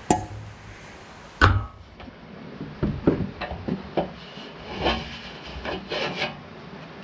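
Rubber drive belt being worked by hand onto the pulleys of a hay mower: two sharp knocks, the louder about a second and a half in, then a stretch of irregular scraping and rubbing with small knocks as the belt drags against the pulley and the machine's metal.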